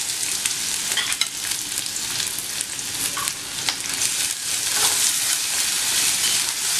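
Freshly added chopped onions sizzling in hot oil in a stainless steel kadai, with a spoon clicking and scraping against the pan as they are stirred.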